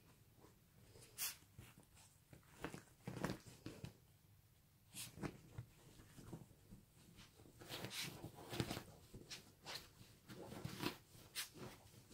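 Faint rustling and scuffling of bed sheets as a small dog moves about on a bed, in short irregular bursts.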